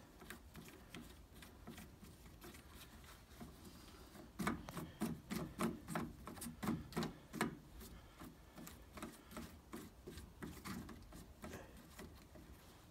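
Faint rubbing and light clicking as hands handle the plastic air cleaner housing and its end cover on a skid steer's engine, with a run of quick rhythmic strokes, about three a second, in the middle.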